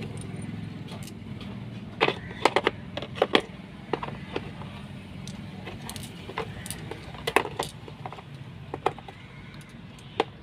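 Small metal sockets and screwdriver bits clicking and clinking as they are handled and set into the slots of a moulded plastic tool case, irregular knocks with a cluster of them about two seconds in, over a steady low hum.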